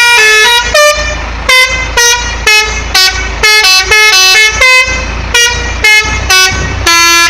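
Telolet horn, a multi-tone musical vehicle horn, playing a quick tune: about fifteen loud short honks in changing pitches, a few held for around half a second.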